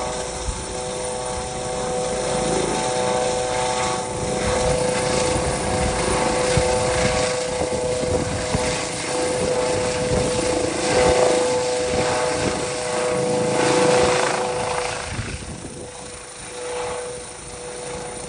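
Rescue helicopter hovering overhead during a cable hoist: steady rotor noise with a high turbine whine. The sound drops away about three seconds before the end as the helicopter pulls away.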